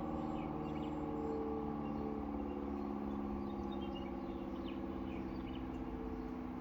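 Air raid siren sounding a steady chord of several tones that slowly fades as the siren winds down at the end of its test. Birds chirp faintly over it.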